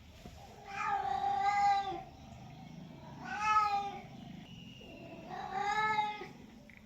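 Domestic cat meowing three times, each meow long and drawn out, about a second, with a rise and fall in pitch, spaced a couple of seconds apart.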